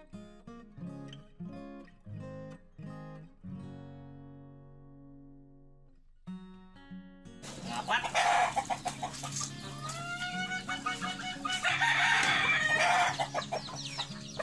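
Plucked acoustic guitar music, cutting off abruptly about seven seconds in to the sound of chickens: a rooster crowing, amid loud bursts of noise.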